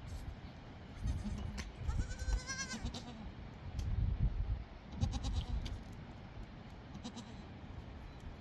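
A single quavering bleat from livestock, about a second long and starting about two seconds in. A few sharp clicks follow around five seconds, over intermittent low rumbling.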